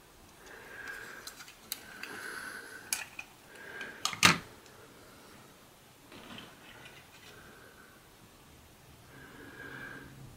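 Light clicks and taps of LEGO plastic pieces, with one sharp knock about four seconds in.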